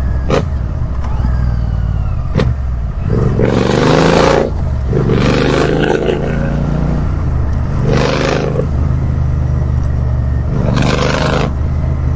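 Royal Enfield 650 parallel-twin motorcycle with its silencer mesh removed, idling loudly and revved in four short throttle blips. There are two sharp cracks in the first few seconds. The open exhaust is described as far too loud, ear-splitting.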